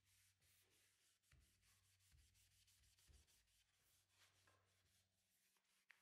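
Very faint, quick repeated rubbing strokes of a solvent-wet shop towel scrubbing bare wood, over a steady low hum.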